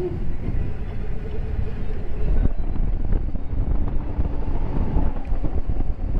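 Wind rushing over the microphone and a low rumble while riding a Zero DSR-X electric motorcycle, with a faint whine from its electric drive that shifts in pitch with speed.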